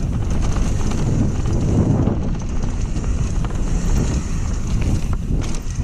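Wind buffeting the microphone during a mountain-bike trail ride, over the steady rumble of the tyres on dirt and scattered small knocks and rattles from the bike.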